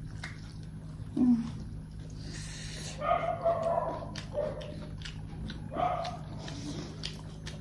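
A dog yipping in a few short, high calls, a cluster about three seconds in and one more near six seconds, over a steady low hum.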